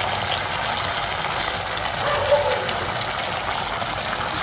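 Soy and tomato sauce with browned ginger and garlic sizzling in a little hot oil in a steel kadai: a steady hiss.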